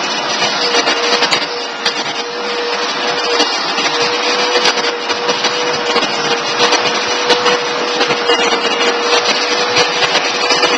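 Vacuum cleaner running steadily with a constant whine, its nozzle rubbing against a cat's fur with scattered crackles and clicks.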